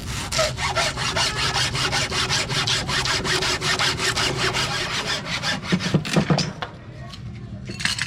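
A saw cutting bamboo with rapid, rhythmic strokes, then a few louder knocks about six seconds in.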